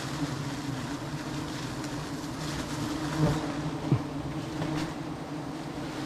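A swarm of wild honeybees buzzing as a steady, low drone around a nest that is being cut open for its honey.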